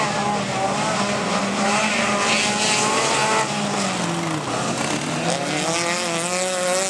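Several dirt-track race cars' engines revving hard at the same time, their pitches rising and falling as the drivers accelerate and lift through the bends.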